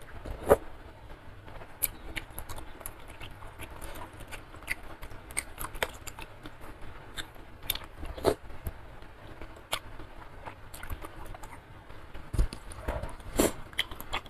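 Close-miked eating sounds: sipping soup from a wooden spoon and chewing instant noodles, beef skin and meatballs, with many small wet mouth clicks. Louder moments come about half a second in, about eight seconds in and near the end.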